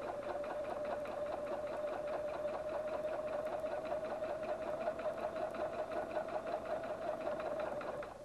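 Husqvarna Viking Platinum 770 sewing machine stitching through a denim hem at steady speed: a motor hum with rapid, even needle strokes. It stops abruptly near the end.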